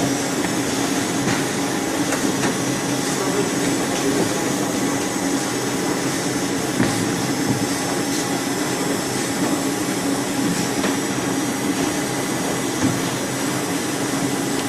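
Squid-processing machinery running with a steady hum and a few faint ticks.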